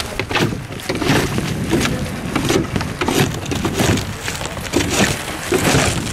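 Roof tear-off work: a string of crunching, scraping knocks, about one or two a second, from footsteps on the roof and torn-off old roofing shingles being carried and handled, over a rumbling low background noise.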